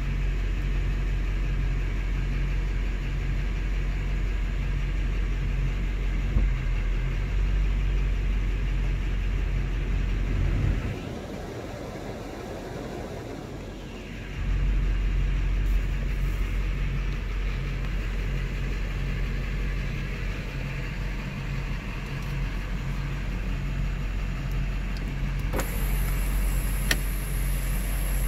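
Chevrolet Duramax 6.6-litre V8 turbodiesel idling, heard from inside the truck's cab as a steady low rumble with an even pulse. About eleven seconds in, the rumble drops away for a few seconds under a rushing sound, and a thin high hiss comes in near the end.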